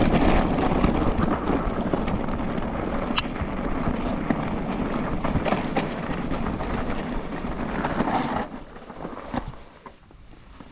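Wind buffeting the microphone over the rumble of an e-mountain bike's tyres on a rough, stony track, with a few sharp clicks; it dies down about eight and a half seconds in.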